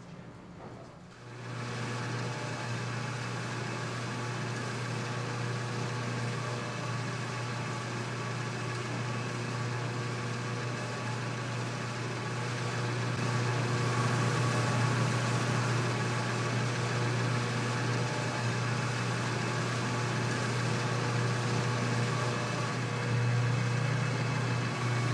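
Food-processing machinery, such as a large kettle mixer and batter depositor, running with a steady low hum that starts about a second in.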